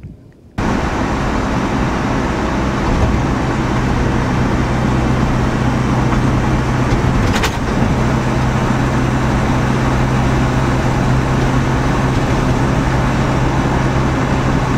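Car running: a loud, even noise over a steady low engine hum that cuts in and out abruptly, with a single sharp click about halfway through.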